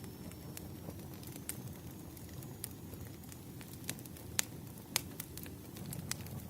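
Campfire burning: a steady low rush of flames with scattered sharp crackles and pops from the burning wood, two louder pops about four and a half and five seconds in.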